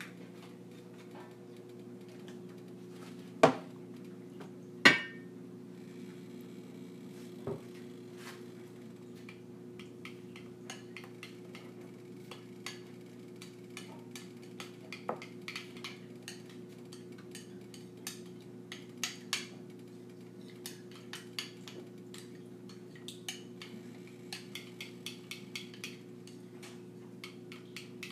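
Kitchen dishes and utensils being handled: two sharp knocks about three and a half and five seconds in, then a long run of light clinks and taps, all over a steady low hum.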